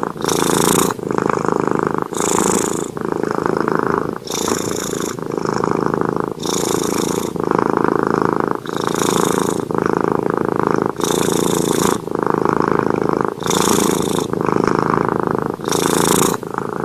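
Domestic cat purring continuously in a steady in-and-out rhythm, a full breath about every two seconds, with a breathier, hissier sound on every other phase.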